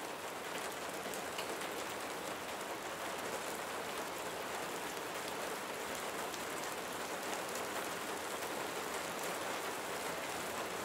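Steady rain falling, an even, unbroken wash of rain.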